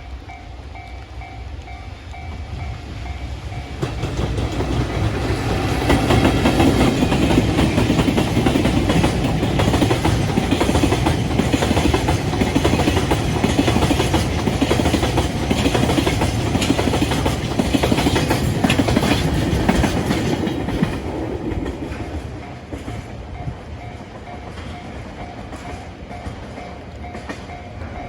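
A freight train passing over a level crossing, its wheels clacking over the rail joints; it builds about four seconds in, stays loud through the middle and fades after about twenty seconds. The crossing's warning bell rings in an even, repeating beat at the start and again once the train has gone by.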